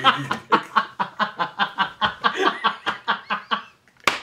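Two men laughing hard together, a quick run of breathy laughs at about five a second that fades out, followed near the end by a single sharp knock.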